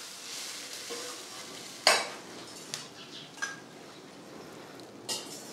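Cumin seeds and chillies sizzling in hot ghee in a steel kadhai, with a metal ladle stirring and clinking against the pan; the loudest clink comes about two seconds in, with a few lighter ones after.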